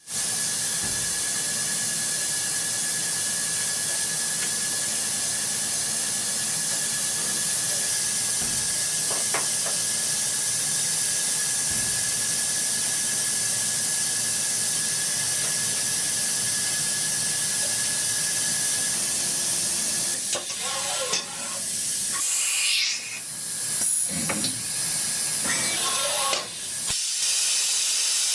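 Steady loud hiss with a thin, steady high tone running through it. About twenty seconds in, the tone stops and several short sounds that slide in pitch break in before the hiss resumes.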